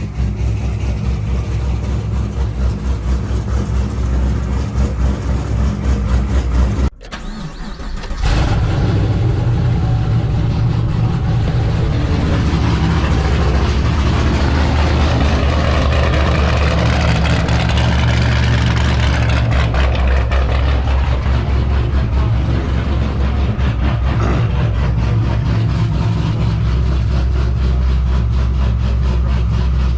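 2015 Camaro SS V8 engine running with a steady low drone. The sound breaks off briefly about seven seconds in, then runs on steadily and a little louder.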